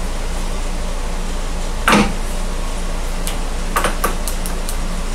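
Handling sounds at a metal lathe over a steady low machine hum: one sharp knock about two seconds in, then a quick run of light clicks near four seconds.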